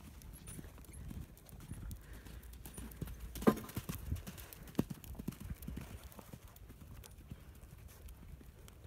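Horses' hooves thudding on soft sand arena footing, with one horse cantering close past partway through. A sharp knock stands out about three and a half seconds in.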